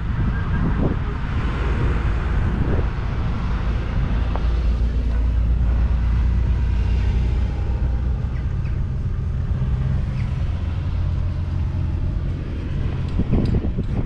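An engine running at a steady idle, with wind buffeting the microphone at the start and again near the end.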